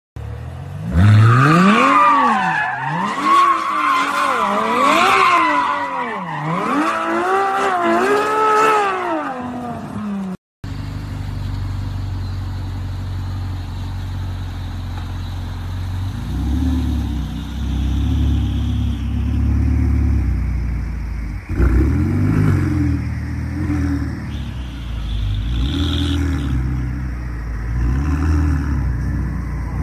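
A Ferrari V12 revving hard, its pitch climbing and falling several times, until it cuts off abruptly about ten seconds in. Then a Ferrari 488 Pista's twin-turbo V8 runs low and steady, with a few blips of the throttle.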